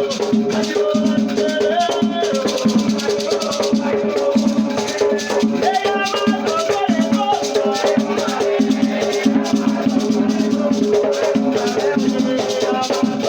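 Batuque ceremony music: drums beating a steady, dense rhythm with shaken rattles, and voices singing over them.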